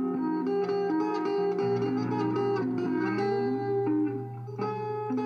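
Guitar solo: single plucked notes moving quickly over a held low note, with a brief drop in level about four seconds in.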